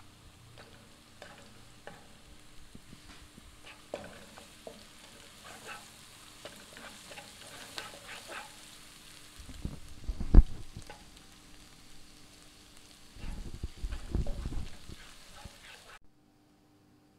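Minced garlic and ginger sizzling gently in oil in a nonstick frying pan while a plastic spatula stirs them, with small scrapes and taps against the pan. Two louder stretches of spatula-on-pan scraping and knocking come about ten and fourteen seconds in, the first with one sharp knock. The sound cuts off abruptly about a second before the end.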